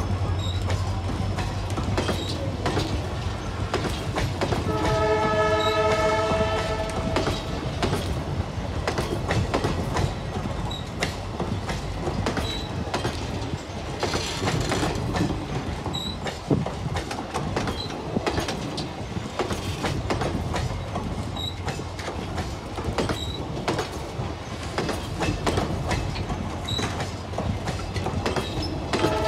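Passenger coaches rolling past close by, their wheels clattering steadily over the rail joints. A train horn sounds a chord for about two seconds, around five seconds in, and starts again at the very end.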